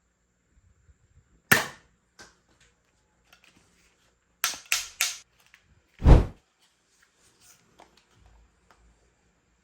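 Sharp plastic clicks and knocks from a toy gun being worked and tried: a loud snap about one and a half seconds in, three quick clicks in a row around the five-second mark, and a heavy thump about six seconds in, then a few faint clicks.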